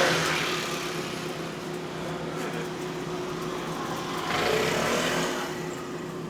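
Street traffic: one vehicle passing fades away just after the start, and another passes about four to five seconds in, over a steady low hum.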